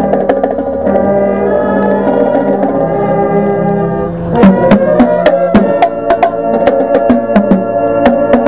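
Instrumental TV theme music: held keyboard chords, with drum and percussion hits coming in about four seconds in and beating regularly.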